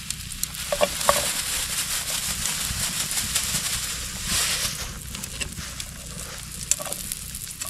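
Pork loin and vegetables sizzling over charcoal, with scattered clicks and taps of cooking utensils. The sizzle swells briefly about four seconds in.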